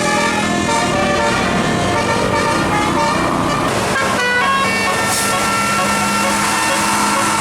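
Tour bus telolet horn, a tuned multi-tone air horn, playing a melody of changing notes, with a run of short high notes about four seconds in. A steady low tone sits beneath from then on.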